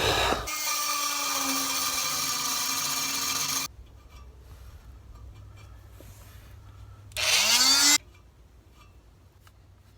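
Handheld electric power tool cutting at a seized exhaust bolt. It runs steadily for a few seconds and stops. Near the end it is triggered again for under a second, its pitch rising as it spins up.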